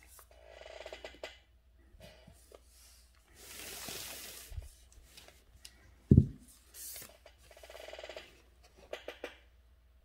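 Handling sounds at a calligraphy desk: three rustling, swishing stretches of about a second each, a single sharp thump just after six seconds, and a few quick clicks near the end.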